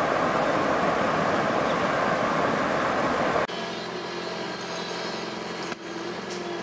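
Water rushing through a breach in an earth-and-rock dam, a loud, even rush. About three and a half seconds in it cuts abruptly to a quieter, steady diesel engine hum from a working excavator.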